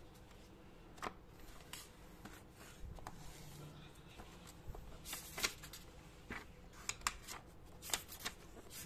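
Pages of a paperback comic book being turned by hand: paper rustling and flicking in short, sharp strokes, bunched together from about five seconds in to the end.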